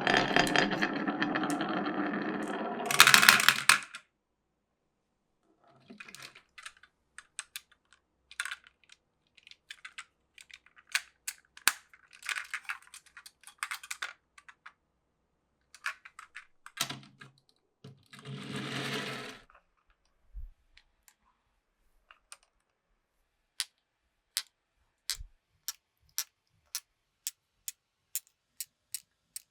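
Glass marbles rolling and clacking through a wooden marble run. A dense run of rolling ends in a loud clatter about three seconds in. Then come scattered clicks and short rolls, and near the end a steady, slowly quickening series of single clicks, about one and a half a second.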